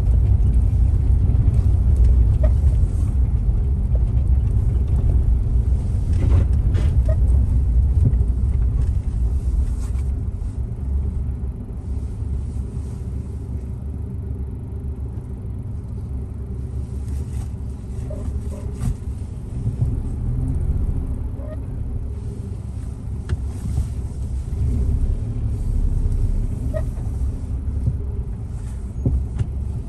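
Low, steady rumble of a car on the move, growing somewhat quieter after about ten seconds.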